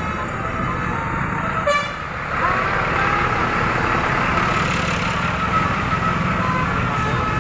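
Bus engines running, with 'telolet' multi-tone bus horns sounding over them. The sound gets louder about two and a half seconds in.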